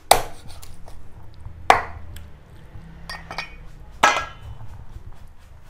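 Meat cleaver chopping a raw frog on a wooden chopping block: three sharp chops spaced a second or two apart, with lighter knocks between them. The last one, about four seconds in, has a brief metallic ring.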